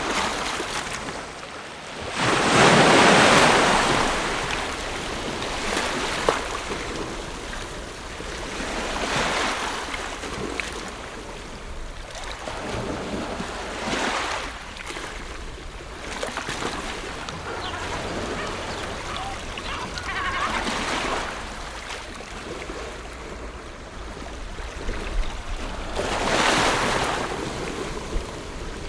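Ocean waves breaking and washing on a shore, the surf swelling and receding about five times, with the loudest wave a couple of seconds in.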